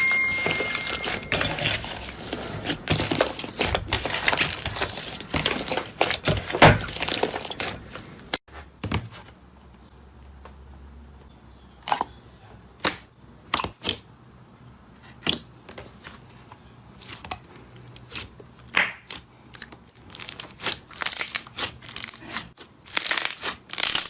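Slime being poked and pressed, crackling and popping: a dense run of crackles for about eight seconds, then an abrupt change to sparse single pops and clicks that grow denser again near the end.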